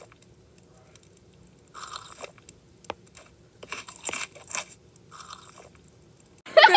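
Someone chewing a crunchy cheese snack, in several short spells of crunching with a few crisp bites. A louder burst comes right at the end.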